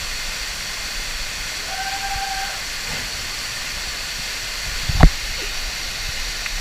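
Steady rushing hiss, with a short held tone about two seconds in and one sharp thump about five seconds in.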